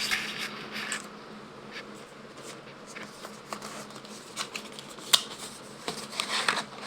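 Hands handling Pokémon trading-card promo packs and cards: light paper-and-card rustling with scattered small clicks, a sharper click about five seconds in, and a burst of rustling near the end.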